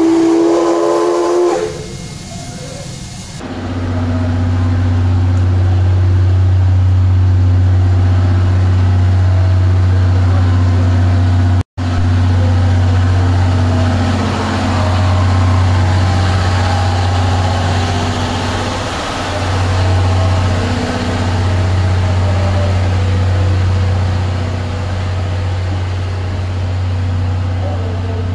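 A C11 steam locomotive's whistle blows in the first second or two, followed by a short hiss. A steady low hum then runs on beside the standing train at the platform, broken once by an edit cut.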